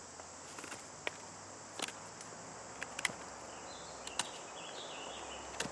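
Knife blade whittling a green wooden stick: about eight short, sharp cuts and scrapes at uneven intervals. Behind them is a steady high hiss of insects.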